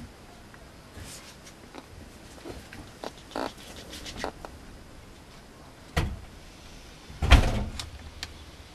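Scattered soft knocks and rustles of a mame shiba puppy tussling with a plush toy on a blanket, with a heavier thump about six seconds in and the loudest bump and rustle about a second later.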